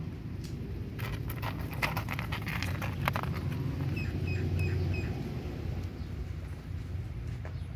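A cat crunching dry kibble: a quick run of small crisp crunches for a couple of seconds, then quieter chewing.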